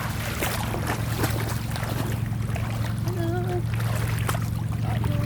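Steady low hum of an engine running at constant speed, heard from aboard the vehicle while travelling, with rustling noise over it.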